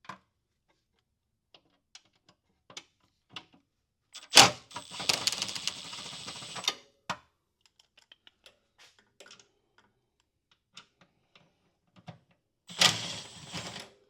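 A 1/4-inch drive socket ratchet clicking in quick runs as bolts are turned, about four seconds in and again near the end, with scattered clinks of metal tools in between.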